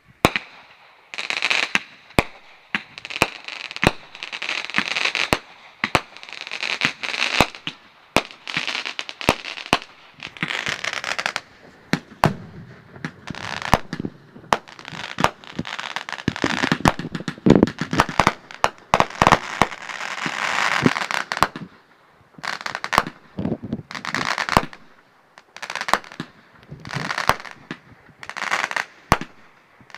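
A barrage of consumer fireworks fired from fuse-linked racks of tubes: a steady run of sharp bangs, each followed by a second or so of hissing crackle. The firing is densest about halfway through.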